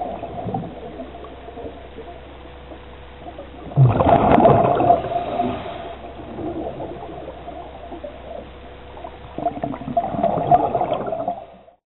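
Scuba diver's exhaled bubbles from the regulator, heard underwater as a bubbling gurgle. Two loud bursts come about six seconds apart, one about four seconds in and one near the end, with a faint water hiss between them.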